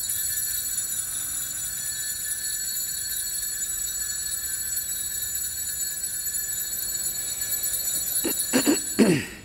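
Altar bell ringing steadily and without a break while the consecrated host is elevated, signalling the consecration. It starts and stops abruptly, with a couple of brief louder sweeping sounds near the end.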